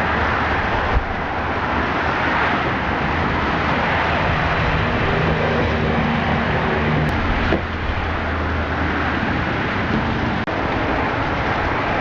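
Steady street traffic noise with a motor's low hum, a few pitched engine tones coming through for a couple of seconds midway, and a short knock about a second in and another about seven and a half seconds in.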